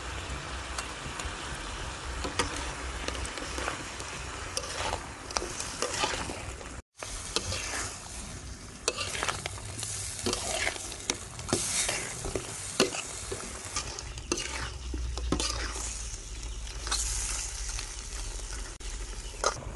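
Blue crabs and sliced vegetables sizzling in a steel wok while a metal spatula stirs them, with frequent scrapes and clinks of the spatula against the pan. The sound drops out for an instant about seven seconds in.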